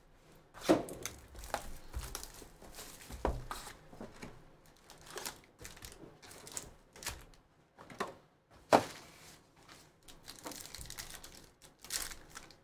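Plastic wrapping and foil card packs crinkling and tearing as a Panini Prizm Football hobby box is unwrapped, its cardboard lid opened and a pack ripped open. The sound is a run of irregular crackles and rustles, the sharpest about nine seconds in.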